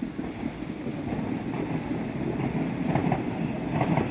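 Distant fireworks going off in a rapid, continuous crackle of many small bangs, getting louder toward the end.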